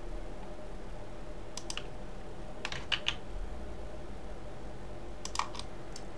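Computer keyboard and mouse clicks from Blender shortcut keys and mouse buttons, a few sharp clicks in three small groups, over a steady low hum.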